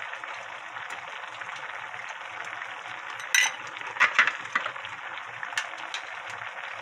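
A spoon stirring starch slurry in a measuring jug, clinking against the side: one sharp clink about three seconds in, then a quick cluster of clinks a second later. Underneath is a steady sizzling hiss from the braise simmering in the pan.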